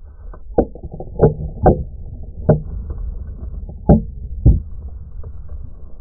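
Aftermath of two aerosol hairspray cans exploding from a rifle hit right beside the microphone: a steady low rumble with six sharp knocks scattered through it as debris and bits of aluminium come down.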